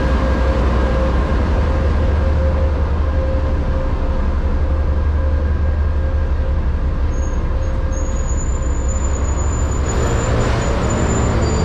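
Arriving passenger train rolling slowly past: a steady low rumble from the TEP70BS diesel locomotive and the double-deck coaches' wheels on the rails. About seven seconds in, a thin high squeal joins in as the train brakes to a stop.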